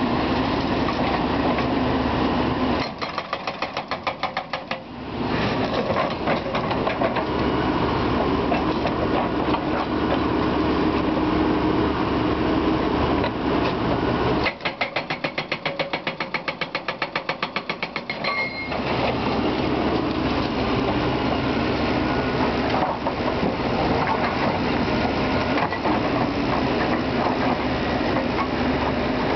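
Hydraulic breaker on a crawler excavator hammering apart concrete with rapid, steady blows. It stops twice for a few seconds, about three seconds in and again about fifteen seconds in, leaving the excavator's diesel engine running with a quick, even pulse.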